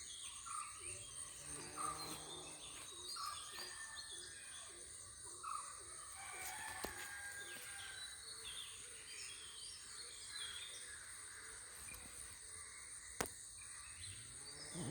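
Outdoor ambience of many small birds chirping, over a steady high-pitched insect drone. There is one sharp click near the end.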